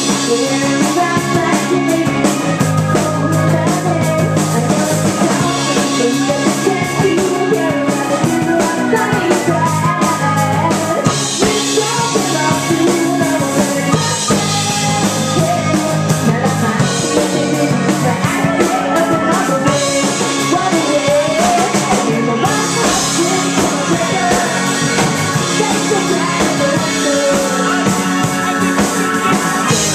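A live indie rock band playing a song: drum kit, electric guitar, bass and keyboards together, at a steady loud level.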